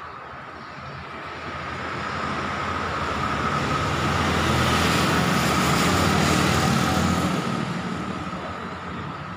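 A small flatbed truck and a scooter driving past, the engine and tyre noise swelling to a peak midway and fading away near the end.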